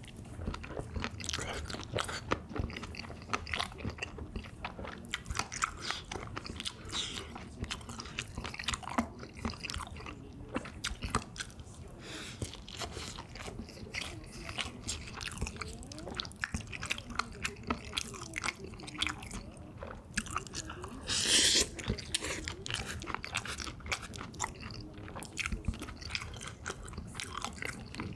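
Close-miked chewing and crunching of spicy pork cartilage (odolppyeo), a run of irregular wet crunches and clicks. A short, louder rush of noise breaks in about two-thirds of the way through.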